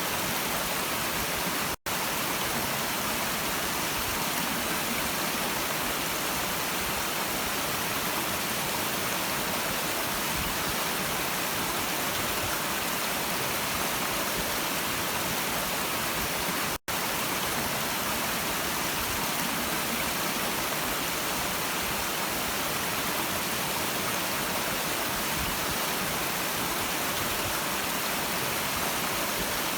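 Stream water running steadily, a dense even hiss of rushing water that cuts out for an instant twice.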